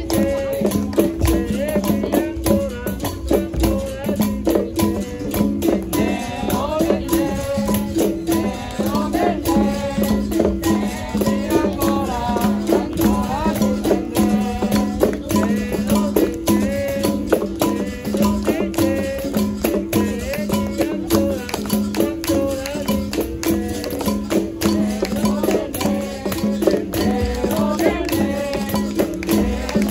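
Capoeira roda music: berimbau playing a repeating two-note rhythm, with caxixi rattle and pandeiro jingles, and a voice singing over it in stretches.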